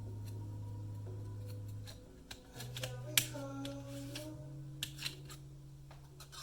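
Background music with slow held chords, over which a few sharp small clicks sound, the loudest about three seconds in, from plastic and metal laptop parts being handled during disassembly.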